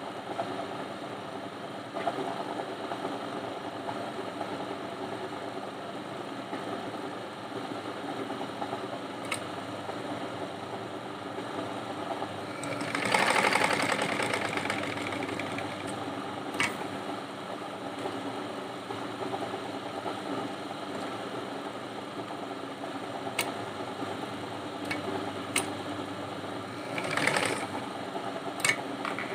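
Domestic sewing machine running and stitching a zip onto cotton dress fabric. The running sound swells louder for a couple of seconds about 13 seconds in, and a few sharp clicks come later on.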